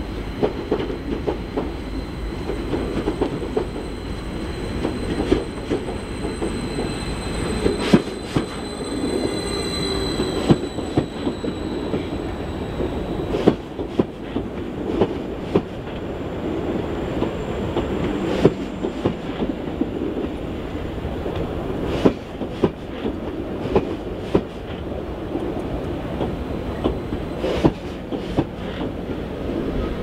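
Long electric passenger multiple-unit train rolling slowly into a station platform. Its wheels rumble and click irregularly over the rail joints. A thin high squeal is strongest about seven to eleven seconds in, with faint falling tones as the train slows.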